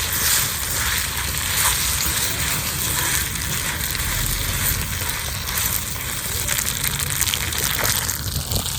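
Spaghetti Napolitan sizzling in a cast-iron skillet over a campfire: a steady hiss with a few faint crackles.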